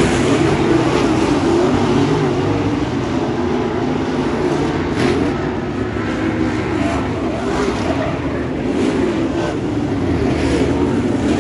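A field of dirt late model race cars running at speed around the oval, their V8 engines blaring together. The sound swells as cars pass close, loudest near the start and again near the end, and eases a little in the middle.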